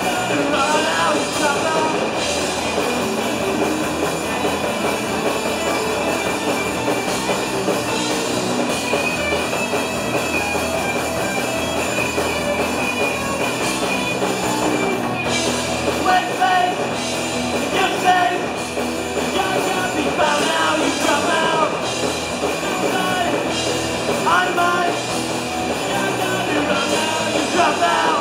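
Punk band playing live: electric guitars and drum kit at full volume, with a sung lead vocal coming in and out in stretches.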